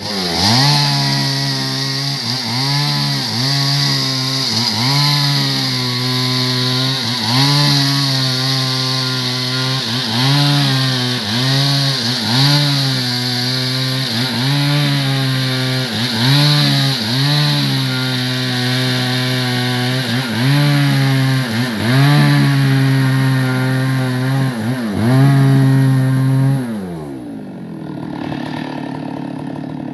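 Stihl MS 382 two-stroke chainsaw running at high revs, its pitch dipping and recovering over and over. Near the end it drops back to idle.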